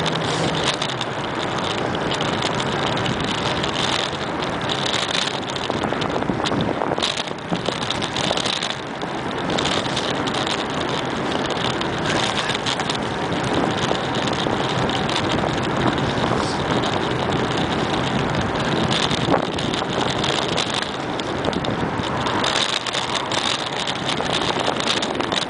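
Steady rushing wind on the microphone and rolling noise of a bicycle riding along a paved trail, with occasional light knocks and rattles from bumps in the path.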